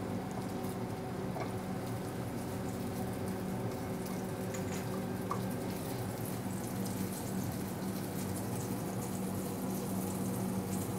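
Eggnog-soaked challah French toast frying in butter in a nonstick pan: a steady, gentle sizzle with fine crackles, over a steady low hum.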